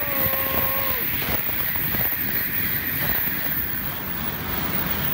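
N700-series Shinkansen bullet train passing at speed, a loud steady rush of air and rail noise, with wind buffeting the microphone. A brief steady tone sounds in the first second.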